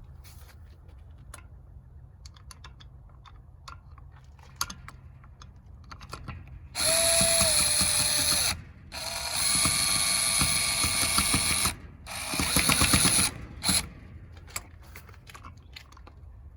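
Cordless drill-driver driving the door knob's two through-bolts in three bursts of a few seconds each, starting about halfway through, after several seconds of light clicks from the bolts and knob being handled.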